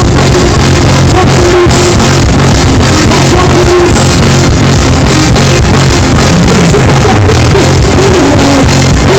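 Loud live reggae and dancehall music: a band with heavy bass and a steady drum beat, with a vocalist singing over it.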